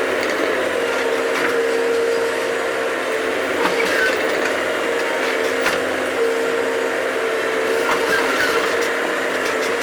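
A Bobcat digging machine running steadily under load, with a whining tone that comes and goes and several sharp clanks, typical of the bucket digging into earth and rock.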